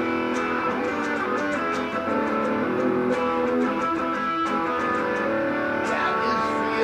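Guitar music.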